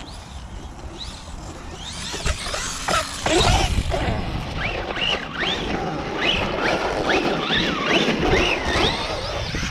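Electric RC monster truck's brushless motor whining up and down in short repeated throttle bursts as it is driven off-road, with a low rumble of tyres and wind underneath.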